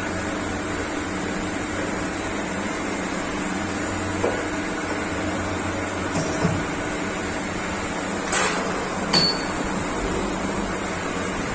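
CNC machine running with a steady hum, broken by a few short clicks and knocks.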